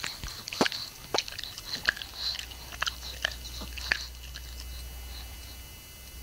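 Pug chewing with sloppy mouth smacks and clicks, irregular and several to the second, thinning out to a few faint ones after about four seconds.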